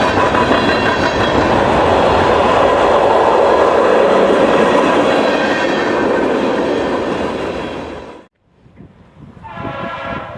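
Freight train rolling past close by, a loud steady rumble of wheels on rail that cuts off abruptly about eight seconds in. Near the end a diesel locomotive's air horn sounds a chord.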